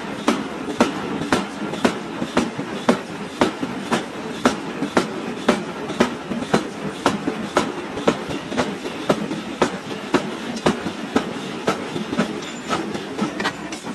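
Power hammer striking a glowing-hot steel ring held in tongs: a steady run of heavy blows at about two a second.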